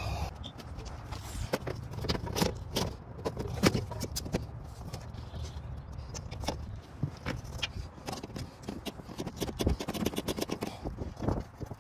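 Irregular clicks, taps and scrapes of gloved hands working on metal panels, fittings and the rubber floor mat of a mini excavator's cab, over a low rumble.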